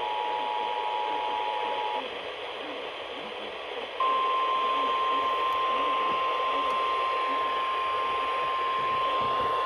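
Emergency Alert System two-tone attention signal over radio static, cutting off about two seconds in. After a couple of seconds of static alone, a single steady, louder alert tone (the NOAA Weather Radio warning alarm tone) starts about four seconds in and holds.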